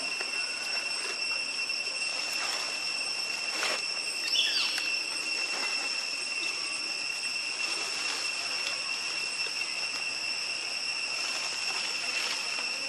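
Steady drone of insects, two unbroken high tones over a constant hiss, with a brief high squeak about four seconds in.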